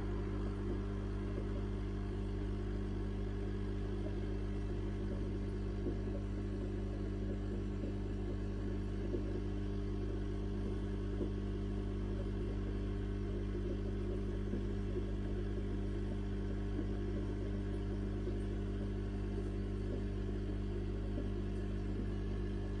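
Steady low hum of running fish-tank equipment, with the bubbling of an air-driven filter in the tank.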